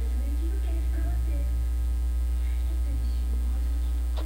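Steady low electrical mains hum picked up by the recording microphone setup.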